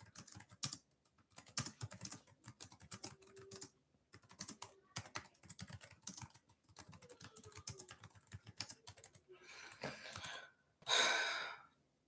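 Typing on a laptop keyboard: quick, irregular key clicks, with a short rushing noise near the end.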